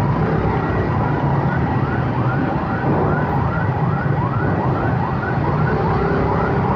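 Electronic warning siren sweeping up in pitch about three times a second, steady and unbroken, over engines idling in stopped traffic.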